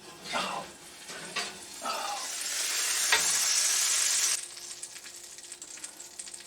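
Fried chicken sizzling in hot fat: a steady hiss that cuts off suddenly about four and a half seconds in, with a few light clatters before it.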